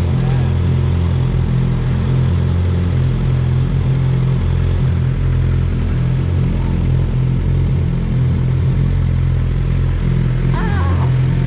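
Motorcycle engine running steadily at an even pitch, a loud low drone with no revving.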